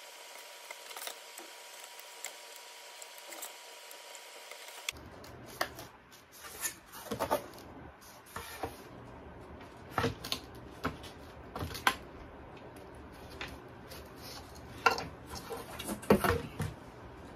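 Foam board being cut with a scalpel and handled on a cutting mat: faint light ticks at first, then scattered sharp taps and knocks as the board is moved and lifted.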